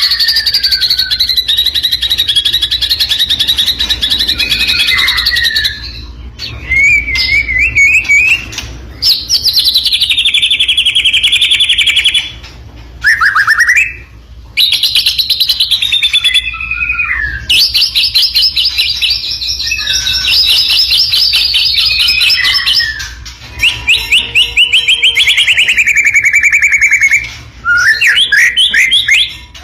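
White-rumped shama (murai batu) singing: long, high phrases of rapid repeated notes, some sliding downward in pitch, broken by short pauses.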